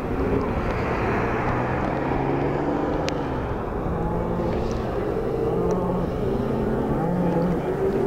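A steady low rumbling noise, with faint indistinct voices coming and going and a single sharp click about three seconds in.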